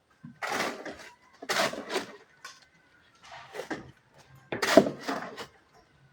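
Four or five short, irregular scrapes of hand tools at building work, with quiet gaps between them.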